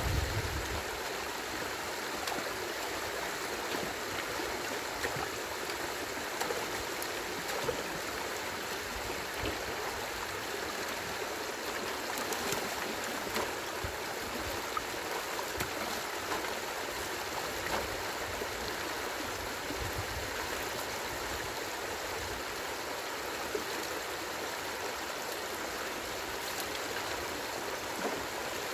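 Stream water rushing steadily over and through a beaver dam, the flow swollen after days of rain.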